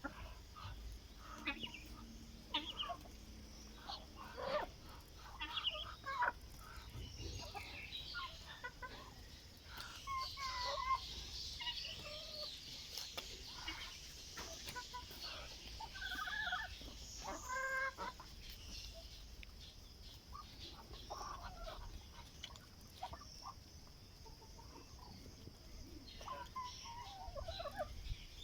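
Chickens clucking in short, scattered calls, with a higher, denser chatter through the middle.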